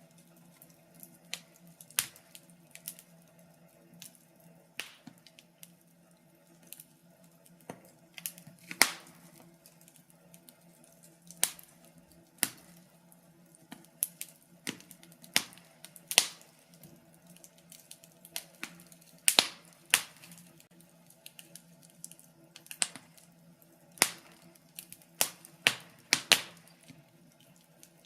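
Wood fire crackling in a fireplace: irregular sharp pops and snaps, one or two a second, with the loudest about nine, sixteen, nineteen and twenty-six seconds in, over a faint steady hum.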